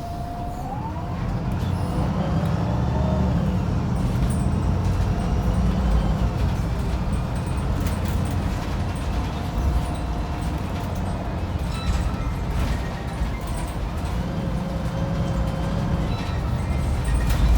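Wright Pulsar 2 single-deck bus under way, heard from inside the cabin: the diesel engine runs with a steady low drone, and a thin whine rises in pitch about a second in.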